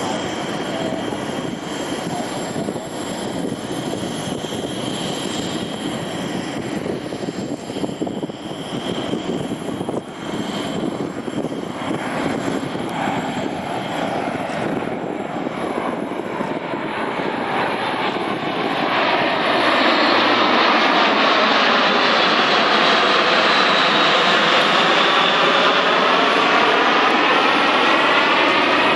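Two Airbus A400M military transports flying past, the drone of their four TP400 turboprop engines growing louder about two-thirds of the way in, with a sweeping whoosh as they pass close.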